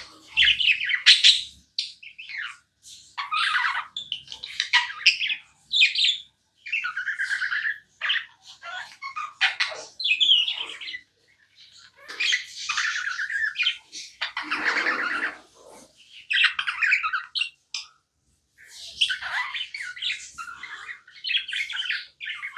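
Pet budgerigar chirping and chattering in short, busy phrases with brief pauses between them, and one harsher squawk about two-thirds of the way through.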